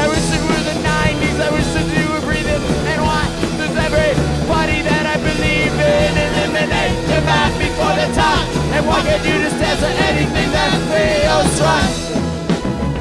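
Rock band playing live through an instrumental passage: drums and bass under a lead melody that bends and wavers in pitch, easing off briefly near the end.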